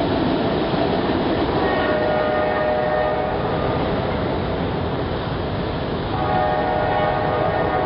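Freight train rolling past with steady wheel and car noise, while the lead GE C40-8W locomotive's K5LA air horn sounds two long, weak-sounding blasts: one from about two to four seconds in, the next starting about six seconds in and still sounding at the end.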